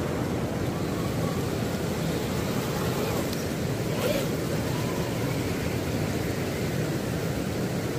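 Steady low rushing noise of wind on the microphone and the flowing river, with no distinct events standing out.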